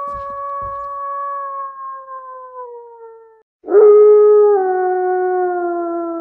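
Two long canine howls. The first lasts about three seconds and sinks slowly in pitch. The second begins about three and a half seconds in, lower, and drops a step before sliding further down.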